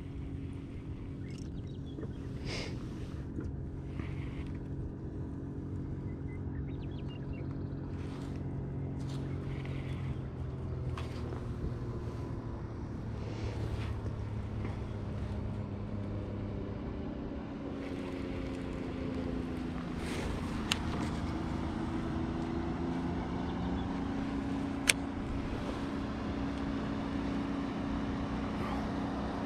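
An engine runs steadily, its pitch slowly drifting down and back up through the middle. Two sharp clicks come in the second half.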